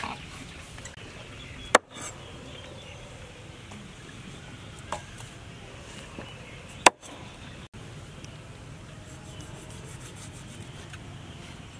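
Meat cleaver striking a snake on a wooden chopping board: two sharp chops about five seconds apart, with a fainter knock between them, over steady low background noise.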